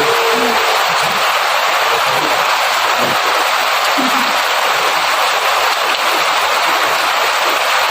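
Rain falling steadily in a downpour, a dense, even hiss with no let-up.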